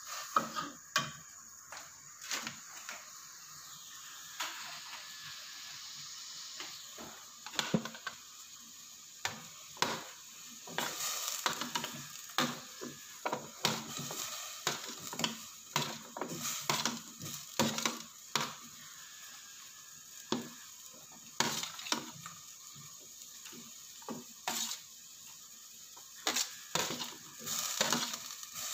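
Metal ladle stirring in an aluminium pot and scraping against a metal tray, with many irregular clinks and knocks as pumpkin chunks are pushed off the tray into the simmering broth, over a steady faint hiss.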